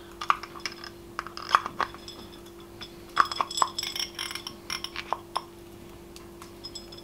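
Irregular small clicks, knocks and light metallic clinks of a fixed-spool fishing reel being handled and its spool and parts fitted back together by hand; they stop about five and a half seconds in.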